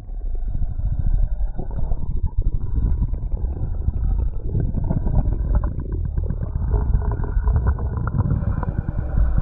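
Body sounds heard through a stethoscope: a continuous, muffled low rumbling with dense crackling.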